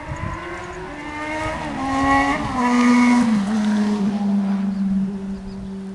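Motor vehicle engine pulling away and accelerating, its pitch climbing, then dropping at a gear change about three seconds in and running on at a steady lower pitch. It is loudest around the middle.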